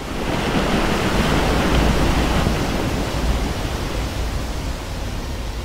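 Steady rushing noise of sea water and broken brash ice washing along a ship's hull, with a deep low rumble underneath, easing a little toward the end.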